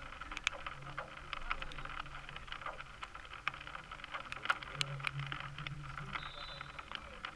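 Outdoor ambience beside a football pitch: a steady low hum and hiss with scattered clicks and light rustling, and a faint short high tone about six seconds in.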